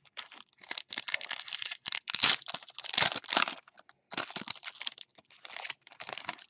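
Foil wrapper of a five-card Donruss Optic basketball pack crinkling and tearing as it is ripped open by hand, in a run of crackly bursts, loudest about two to three seconds in.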